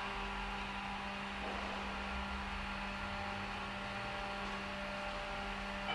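Steady electric hum with a constant low tone, like a machine's motor running at an even speed.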